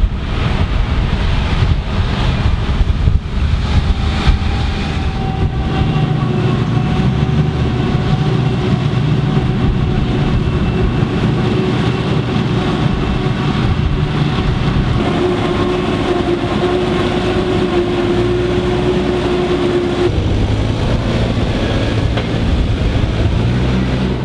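Diesel engines of farm tractors and a self-propelled forage harvester chopping maize: a steady loud drone with held whining tones, shifting about fifteen and twenty seconds in. It ends with a tractor pulling a loaded silage trailer.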